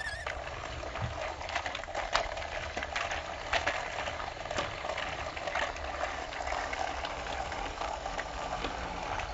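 Battery-powered TrackMaster toy train running along plastic track, pulling its trucks. Its motor and wheels make a steady crackly whir and rattle, with scattered small clicks.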